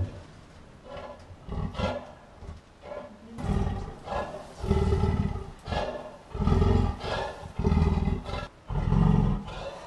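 Black leopard giving a series of low, rough calls, about one a second, starting a few seconds in after a few fainter sounds.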